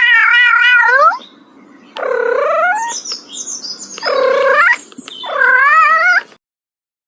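A cat yowling in four drawn-out meows, each about a second long; the first wavers in pitch.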